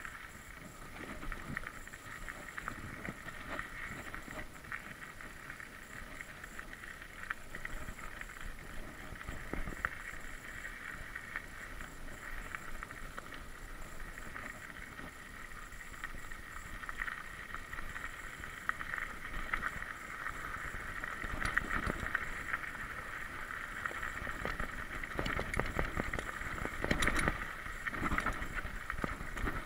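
Mountain bike riding over a dirt singletrack: a steady rolling rumble from the tyres with frequent clicks and rattling knocks as the bike goes over bumps, louder and busier in the second half.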